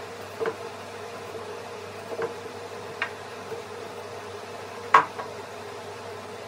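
A few light wooden knocks and taps as a small plywood box is handled and turned over on a wooden workbench, the loudest about five seconds in. A steady hum runs underneath.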